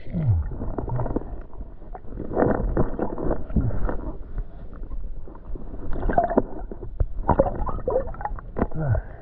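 Muffled, irregular sloshing and bumping of lake water around a person wading, with scattered knocks.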